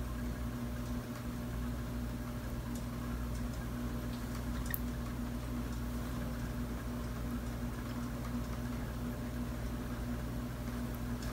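Steady low hum with a faint constant tone, and a few faint ticks, one a little clearer about halfway through.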